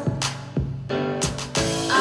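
Hip-hop backing beat playing between rap lines: drum hits with a held bass note, no vocal.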